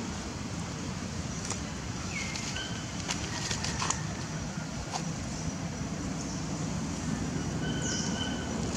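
Outdoor ambience: a steady low rumble, a few sharp clicks, and short, thin high chirps about two seconds in and again near the end.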